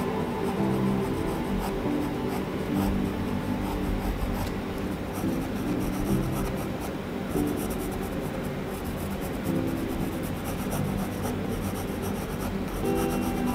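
Graphite pencil scratching on paper in quick, repeated shading strokes, coming in runs mostly from a few seconds in, over soft background music.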